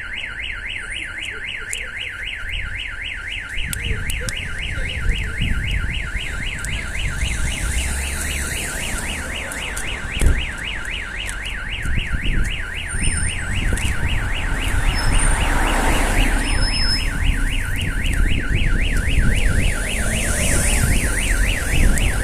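Aftermarket Starline car alarm siren going off on a Toyota Prius, a fast warbling tone repeating several times a second. It was triggered because the alarm cannot detect its Bluetooth authorisation tag, even though the car was unlocked with the key.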